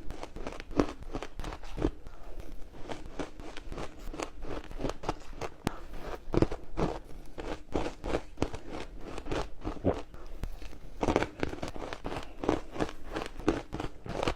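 Ice being crunched between the teeth close to the microphone: a steady run of sharp, crackly crunches, about two or three a second, as the ice is chewed.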